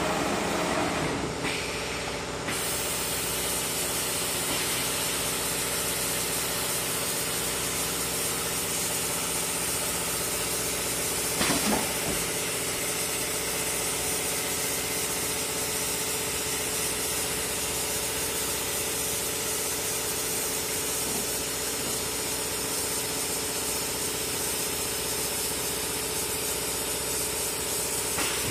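Castaly PRO 510 b CNC router station running steadily: a constant machine hum with a hiss over it while a board is moved onto its table. A short louder knock comes about eleven and a half seconds in.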